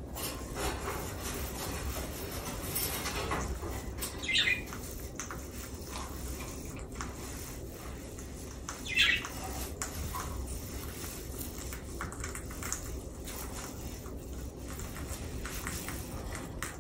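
Pet caique parrot giving two short, high squawks about four and a half seconds apart, over a low steady background noise.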